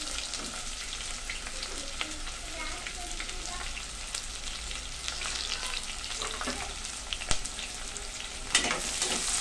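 Sliced onions sizzling in hot oil with whole spices in an aluminium pressure cooker, a steady hiss with small clicks as they are stirred in the pot. The stirring clicks get louder near the end.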